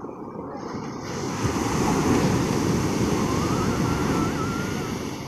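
Sea surf breaking and washing up the shore: a steady rush that builds about a second in and eases off near the end.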